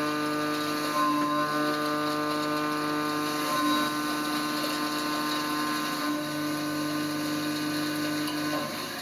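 CNC milling machine plunge-roughing, the end mill cutting down into the workpiece with a steady whine made of several fixed pitches, which drops away near the end.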